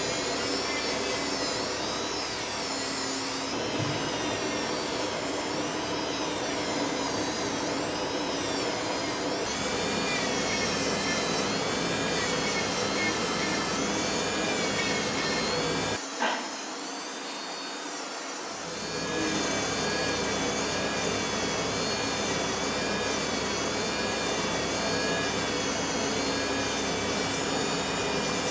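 A small electric power tool running steadily, its motor pitch wavering up and down as it is worked against the metal of a coin ring.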